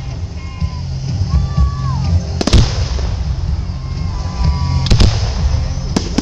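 Aerial fireworks shells bursting with sharp bangs, three of them: about two and a half seconds in, near five seconds and near six seconds. They sound over a steady low rumble.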